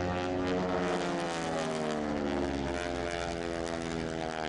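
Propeller drone of North American AT-6 Texans' Pratt & Whitney R-1340 Wasp radial engines during a formation display. The pitch slides gently downward in the first couple of seconds as the planes pass.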